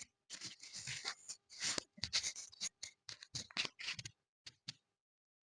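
A quick irregular run of short scratchy rustling noises that stops near the end.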